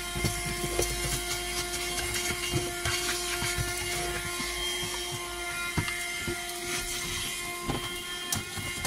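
Handheld vacuum cleaner running with a steady whine, with scattered clicks and knocks as its nozzle works over the plastic floor panel.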